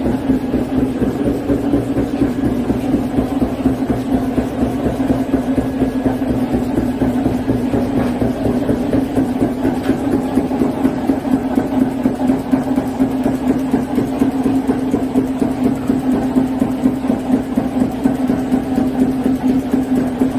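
High-speed flatbed label die-cutting press running, rated at 450 strokes a minute: a fast, even stamping clatter over a steady machine hum.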